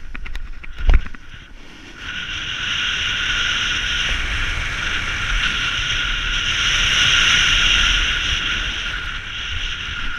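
Snowboard riding down a groomed run: a few clicks and a sharp thump about a second in, then from about two seconds on a steady loud hiss of the board sliding and scraping over the snow, mixed with wind on the camera microphone.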